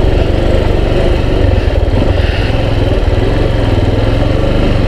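Yamaha XTZ 250 Lander's single-cylinder four-stroke engine running steadily as the motorcycle rides along a dirt road, a continuous low rumble.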